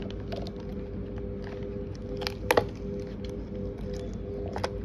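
Soft background music with a steady held note, and a few light clicks from the cured resin letter being pressed out of the flexible silicone mould: two close together about halfway through and another near the end.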